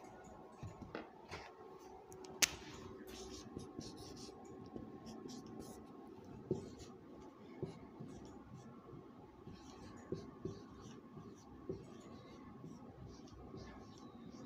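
Marker pen writing on a whiteboard: faint, irregular strokes and scratches as words are written out, with one sharp tap about two and a half seconds in.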